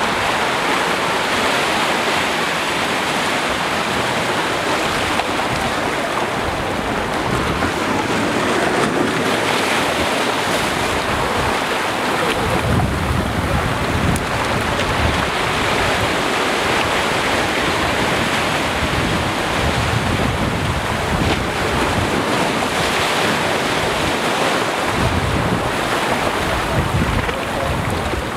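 Small sea waves washing up and draining back over a black pebble beach, with wind gusting on the microphone as a low rumble now and then.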